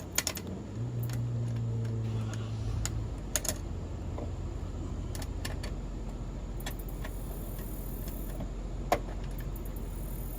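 Scattered light clicks and taps of small screws and a screwdriver working on a metal latch back plate, with a steady low hum underneath.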